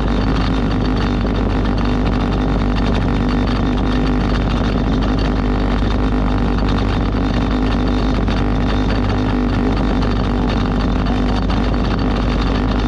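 Motorboat engine running steadily under way, a constant low drone over a steady rushing noise.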